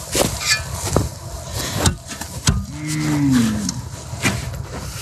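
A Highland cow mooing once, a long call that rises slightly and then falls in pitch, about two and a half seconds in. Several sharp knocks and crunches sound around it.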